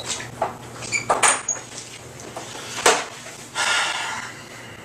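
A door being shut in a small room, with a sharp latch click about three seconds in, after a few lighter knocks. A brief rustle follows just after.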